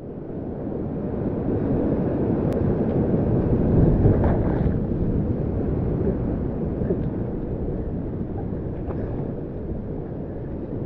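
Whitewater of a steep creek run rushing close around a kayak as it paddles downstream: a steady rush of water that swells about four seconds in and then slowly eases.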